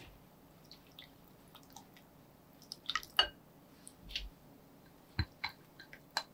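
Light clinks of a wire whisk and glass bowls with soft wet squishing, as beaten egg is poured into cream cheese batter and stirred. The clinks come singly and scattered, with a few sharper ones about three seconds in and near the end.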